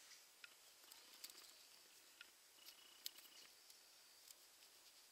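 Near silence: faint rustling and scattered soft ticks as fingers crumble a dry, ripe cattail seed head into fluff, over a faint steady high hiss.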